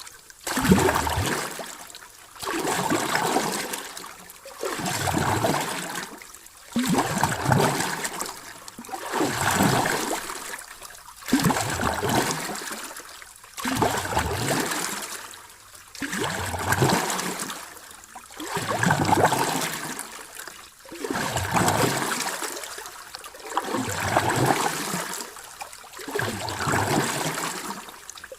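Sea waves washing in and drawing back, a surge of surf about every two seconds, repeating very evenly.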